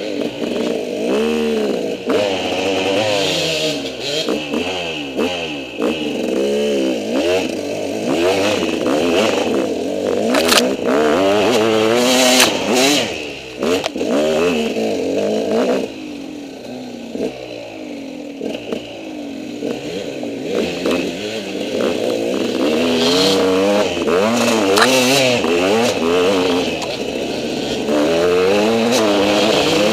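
KTM 200 EXC two-stroke single-cylinder enduro engine being ridden hard on tight singletrack, its revs rising and falling constantly through a trashed exhaust pipe. Short knocks and clatter are heard from the bike over rough ground. The engine drops to lower revs for several seconds around the middle.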